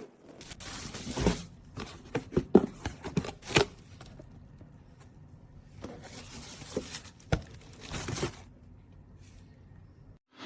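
Irregular clicks, knocks and scraping in two clusters, the first about a second in and the second around seven seconds in.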